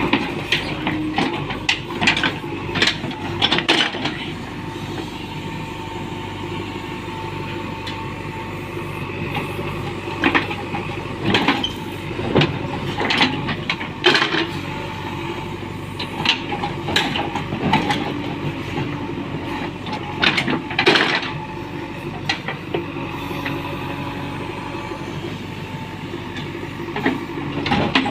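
JCB 3DX backhoe loader's diesel engine running steadily, with repeated sharp metallic clanks and knocks over it.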